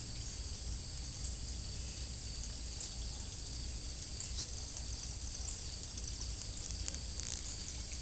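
Steady high-pitched drone of insects calling in the garden, over a constant low rumble, with a few faint clicks.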